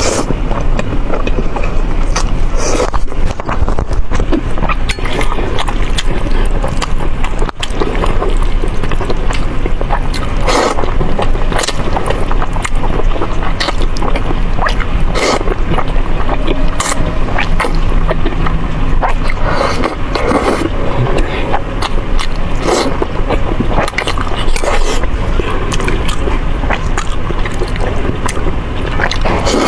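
Close-miked eating sounds: steady chewing and slurping of spicy noodles, with many short, sharp smacks and clicks throughout.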